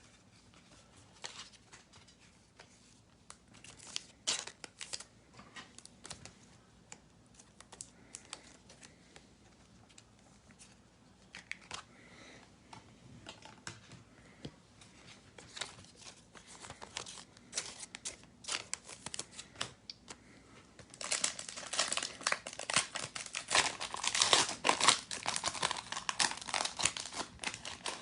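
Trading cards being handled, with scattered light clicks and rustles, then about 21 seconds in the wrapper of a trading card pack is torn and crinkled for several seconds, the loudest sound.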